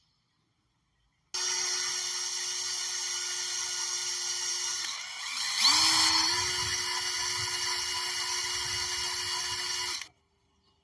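Small high-speed electric drill drilling out the hinge rivets on an MGB vent window. It starts suddenly and runs at a steady pitch, winds down about halfway through, then spins back up with a louder burst as the bit bites, and stops abruptly near the end.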